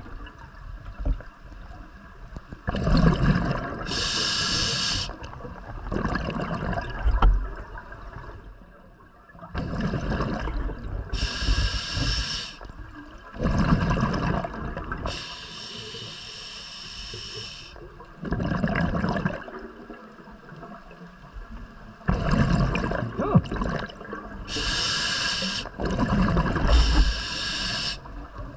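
Scuba diver breathing through an open-circuit regulator, repeated about every five seconds: a high hiss from the demand valve on each breath in, then a gurgling rush of exhaled bubbles.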